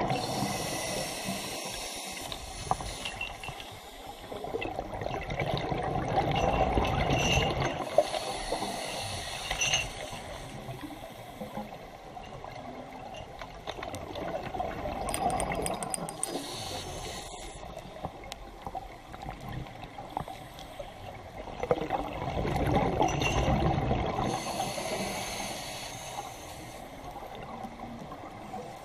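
Scuba diver breathing through a regulator underwater: a hiss on each inhalation and a rush of bubbles on each exhalation, in a slow cycle repeating every several seconds.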